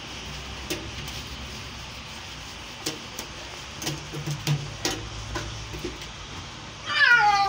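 Domestic cat being towel-dried, with soft rubbing and scattered small handling clicks, then near the end one loud meow that falls in pitch.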